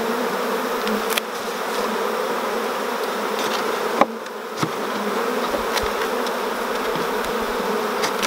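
Honey bees buzzing in a steady, dense hum around an open nuc box as its frames are lifted out. A few sharp knocks of the wooden frames and metal hive tool stand out, the loudest about four seconds in.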